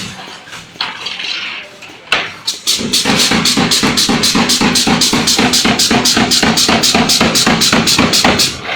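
Background music with a fast, steady percussive beat. The beat drops out for the first few seconds, where only a few clicks and a short hiss are heard, and then comes back.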